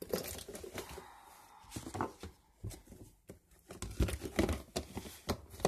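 Rustling and irregular clicks and knocks as a blood glucose meter kit is handled and packed away, with a louder run of knocks near the end.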